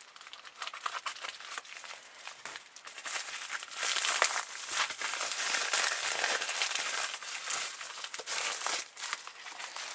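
Small padded bubble envelope being opened and rummaged through by hand, with paper and plastic crinkling and crackling, quieter at first and louder from about four seconds in.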